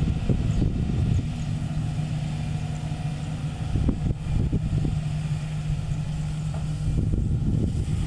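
Sany SY215C crawler excavator's diesel engine running steadily. A steady low hum rises over the engine about a second in and drops away near the end.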